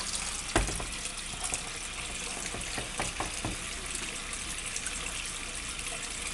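Water pouring steadily into a cooking pot of green beans, potato and tomato sauce to cover them, with a sharp knock about half a second in and a few lighter knocks around three seconds.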